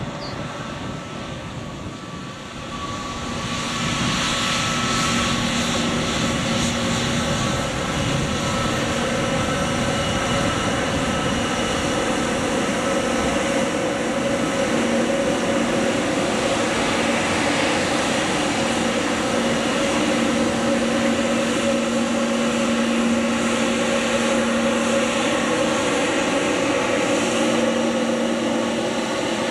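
Airbus A321neo's Pratt & Whitney geared turbofan engines at taxi power: a steady jet whine over a broad rush, growing louder about three seconds in and holding.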